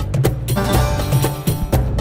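Background music with a steady beat: sharp percussion strikes about four times a second over a low bass line.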